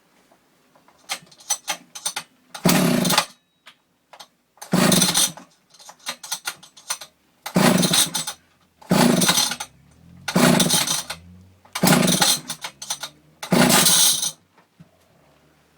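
Husqvarna 1100 chainsaw, unused for over 15 years, being pull-started: seven hard pulls on the recoil starter, each a short burst of cranking, without the engine catching.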